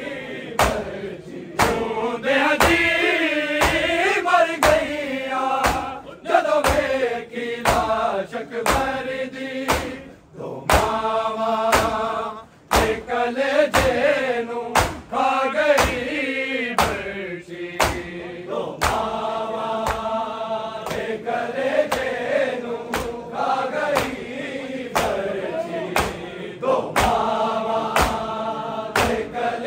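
A group of men chanting a Punjabi noha (Shia lament), the voices swelling and falling in sung phrases, over a steady beat of sharp hand slaps about one and a half a second.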